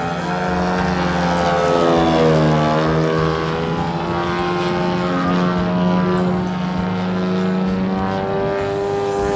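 Yak-55M aerobatic plane's propeller engine running hard through aerobatic manoeuvres. The engine note dips in pitch and comes back up about two seconds in, then holds steadier.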